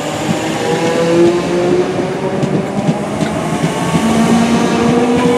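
Merseyrail Class 507/508 electric multiple unit accelerating away from the platform. Its traction motors give a whine of several tones that slowly climbs in pitch, then steps down about four seconds in and starts climbing again.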